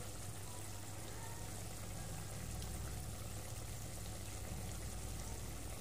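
Beef in curry-spiced sauce simmering in a frying pan over a gas burner: a steady, even bubbling hiss.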